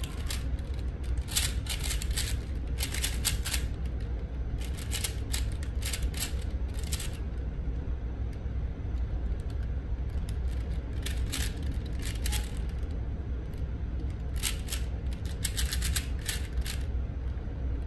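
4x4 Rubik's cube being turned fast by hand during a timed speedsolve: the plastic layers click in quick bursts of rapid turns, with a quieter stretch of a few seconds midway where few turns are made. A steady low hum runs underneath.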